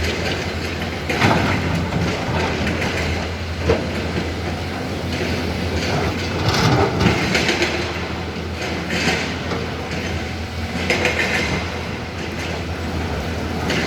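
Hyundai HX220L crawler excavator working: its diesel engine runs with a steady low hum while irregular metallic clanks and squeals come every couple of seconds.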